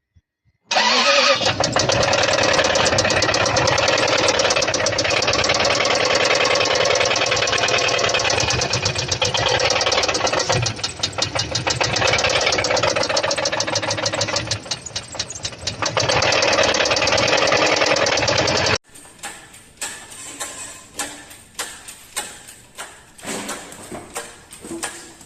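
Car engine running with a knock from inside: rapid repeated knocks over the engine noise, the sign of internal engine damage. The running stops abruptly about three-quarters of the way through, leaving quieter, irregular sharp clicks and knocks.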